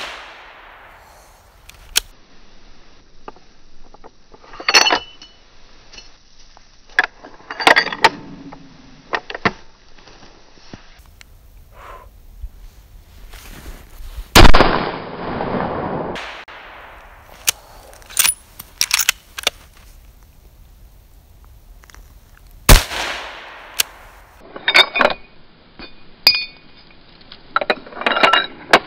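Weatherby Vanguard Series 2 bolt-action rifle in .240 Weatherby Magnum fired twice, about eight seconds apart, the first shot about halfway through. Each shot rings out and trails off for a second or two. Between and after the shots come short clusters of sharp metallic clicks and clacks, the bolt being worked to eject and chamber rounds.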